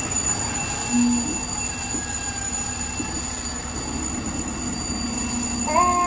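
FDNY fire engine idling with a low diesel rumble and steady high-pitched tones above it. Near the end a siren or horn on the apparatus starts, its pitch sinking slowly.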